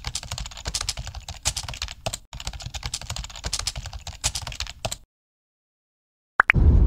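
Computer keyboard typing sound effect, quick key clicks for about five seconds, then it cuts off into silence. Near the end a short blip, and the low rumble of a car's cabin on the road comes in.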